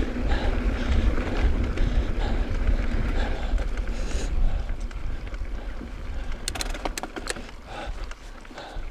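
Mountain bike ridden along a dirt singletrack: a steady low rumble of tyres on the trail and wind buffeting the microphone, with a few sharp clicks and rattles from the bike about six and a half to seven and a half seconds in.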